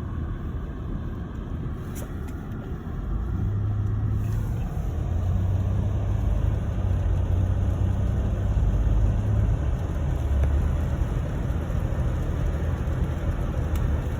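Car driving on snowy roads: a steady low engine and road rumble that grows louder about three seconds in.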